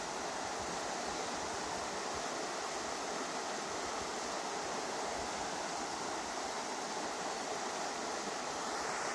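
River water flowing: a steady, even rush of moving water.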